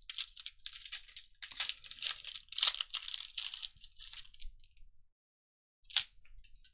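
Foil wrapper of a 2021 Mosaic football retail card pack crinkling and tearing as it is opened by hand: a dense run of crackles for about four and a half seconds, then a short crinkle near the end.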